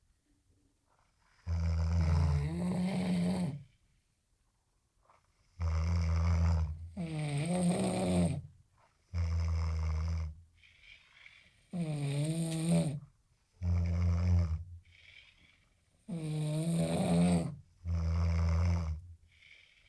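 Loud human snoring: about eight snores, each a second or two long, with short quiet pauses between; some waver in pitch.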